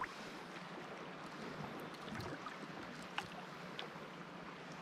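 Faint water and wind around a small outrigger canoe on the sea, with a few light clicks.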